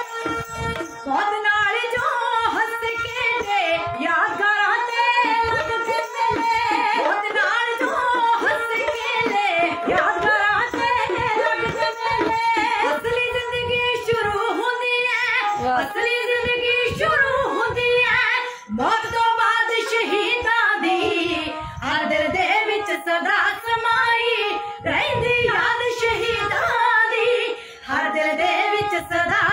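Women's voices singing a dhadi song in Punjabi, with a sarangi bowing a sustained accompanying line and dhadd hand drums struck in rhythm.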